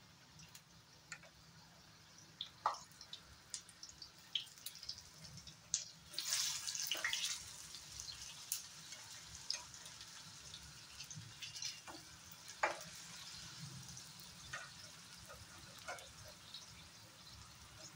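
Dal vadas (chana dal fritters) shallow-frying in hot oil in a pan: a faint sizzle with scattered pops and crackles. About six seconds in the sizzle swells louder for a second or two as they are turned over with a spatula, and there are a few sharp clicks after it.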